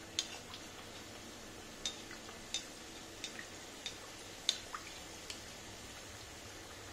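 Chandrakala pastries deep-frying in oil in a steel kadhai over a medium flame: a low steady sizzle with irregular sharp crackles and light clicks, about one a second, as a perforated steel slotted spoon is worked in the pan.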